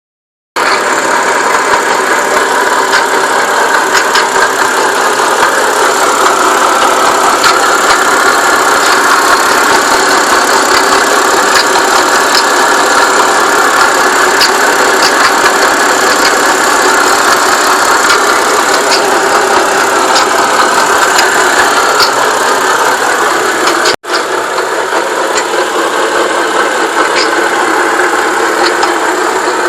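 BMW N52 straight-six idling in the engine bay with a steady metallic rubbing noise and scattered light ticks, which the owner suspects is a dying power steering pump running low on fluid. The sound drops out for an instant about 24 seconds in, then carries on.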